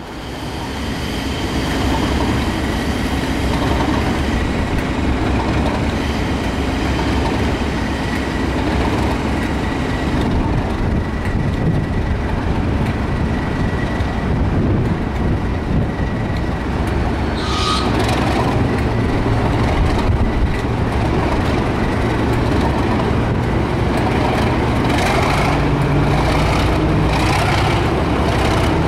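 Class 37 diesel locomotive's English Electric V12 engine running at the platform, its low note strengthening and rising in the last third as it powers up to pull away. A short high-pitched note sounds just past halfway.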